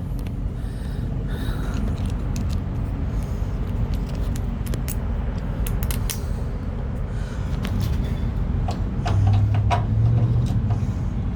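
Scattered light metallic clicks and taps as a mortise lock cylinder and its spacer ring are handled, over a steady low rumble. A low hum swells about nine seconds in.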